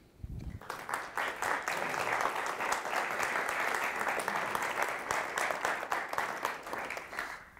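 Audience applauding: the clapping builds up within the first second, holds steady, and tapers off near the end.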